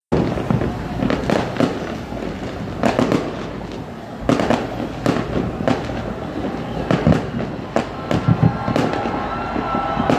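Fireworks display: aerial shells bursting in an irregular series of sharp bangs, some in quick pairs, each trailing off in an echo, over a steady background hubbub.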